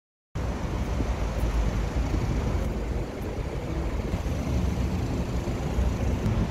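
Steady road-traffic noise, heavy in low rumble, cutting in suddenly about a third of a second in.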